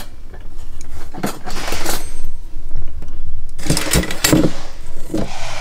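Bakelite-handled table knives clinking and clattering as they are handled and dropped into a cardboard box, in two bouts.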